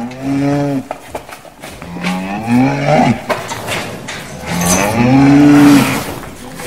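Cows mooing in a stable: three moos, the third the loudest and longest, with a few short knocks between them.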